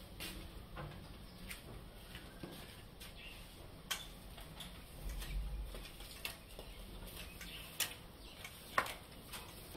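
Scattered light clicks and taps: flip-flops slapping on a tiled floor in the first seconds, then a few sharper isolated taps, with a brief low rumble about halfway through.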